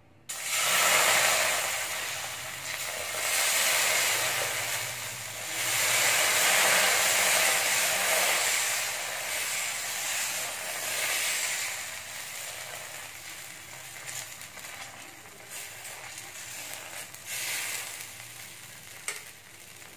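Tomato dosa batter sizzling on a hot dosa pan as it is ladled on and spread in circles. The sizzle comes in swells, loudest in the first half, then dies down as the batter sets and bubbles.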